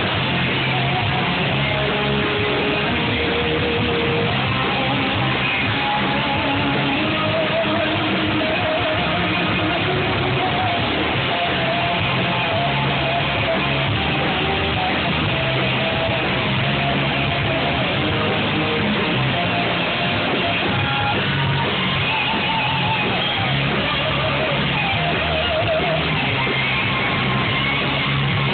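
Rock band playing live during a sound check, with amplified electric guitars over a steady, repeating bass line and no break.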